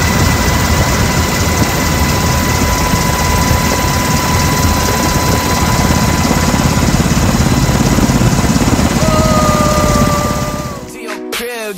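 Cabin noise of a UH-60 Black Hawk helicopter in flight: loud, steady rotor and turbine noise with a high steady whine. Near the end it cuts to music.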